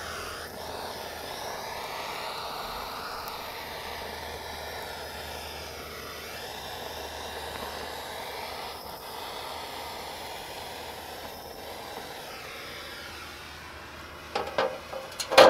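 Handheld propane torch hissing steadily, its flame held on a small pool of diesel in a metal tray. Near the end come a few sharp knocks.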